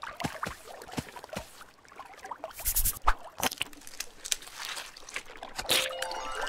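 Cartoon sound effects of a boat being shoved and dragged over sand: scattered scrapes and knocks, with a louder scraping rush about midway. A rising run of musical tones begins near the end.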